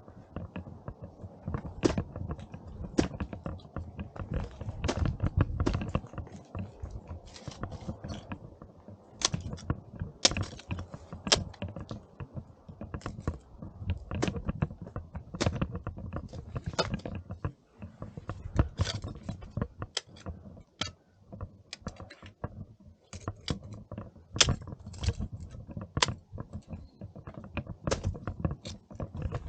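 Irregular crunching clicks and knocks, roughly one a second, over a low rumble: footsteps in snow and ice.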